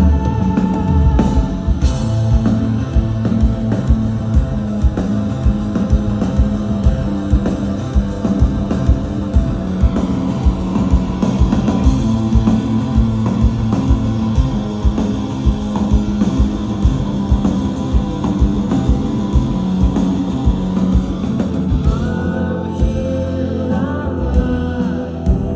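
Live indie rock band playing: a steady drum beat under electric guitars and bass, with singing coming in near the end.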